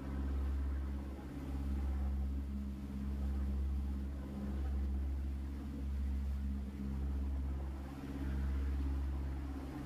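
Sightseeing boat's engine droning steadily, a low hum whose loudness swells and eases every second or two, with a lighter hiss above it.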